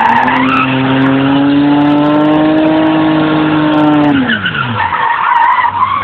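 BMW engine held at high, steady revs while the rear tyres spin and squeal in a burnout. A little after four seconds in, the revs fall away and the tyres squeal again near the end.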